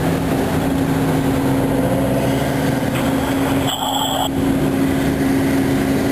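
An engine running steadily under the rush of a large gas-fed training fire. About four seconds in, a short burst of two-way radio squelch cuts in.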